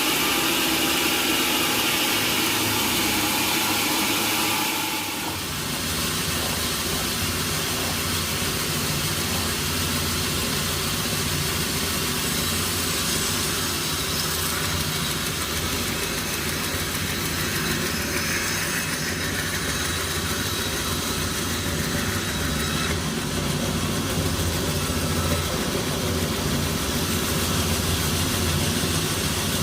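Sawmill machinery running steadily with a continuous low drone. About five seconds in, the sound changes, the higher, brighter part dropping away and leaving a steadier low hum.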